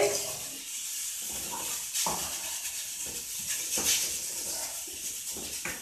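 Diced pork sizzling as it fries in oil in a saucepan, with a spatula stirring it and scraping the pot a few times.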